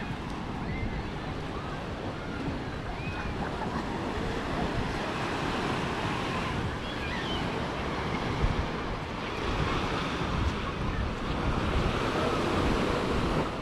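Surf washing onto a sandy beach, with wind rumbling on the microphone.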